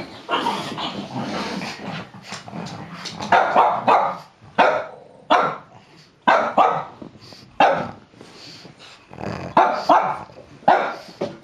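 A dog growling for the first few seconds, then barking in short, sharp barks, about a dozen in irregular clusters, at a placard held over it.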